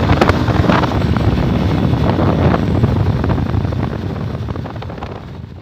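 Motorcycle running on the road with heavy wind buffeting the microphone, fading out near the end.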